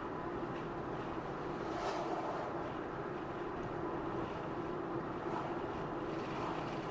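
Car driving along a highway: steady tyre and road noise with a constant low hum, and a brief swell about two seconds in.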